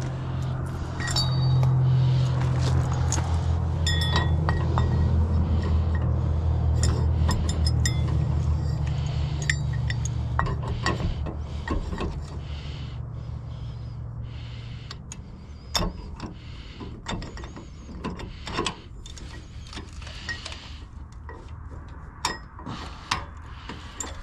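A low steady rumble, loudest in the first half, fades out over about fifteen seconds, while small metallic clinks and clicks of parts being handled sound throughout.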